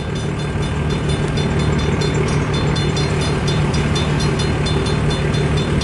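Cars of a long mixed-freight train rolling past at a steady pace, a continuous rumble with a thin steady high tone over it.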